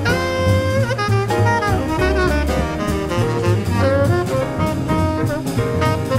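Jazz quartet playing: a saxophone plays a moving melody line over piano, a plucked double bass walking in the low end, and a drum kit keeping time on the ride cymbal.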